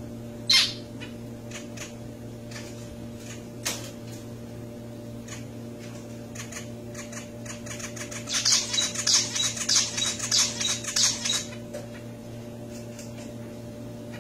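Male zebra finch: a loud short call about half a second in and another near four seconds, then a rapid run of high, quick chirping song notes for about three seconds, over a steady low hum.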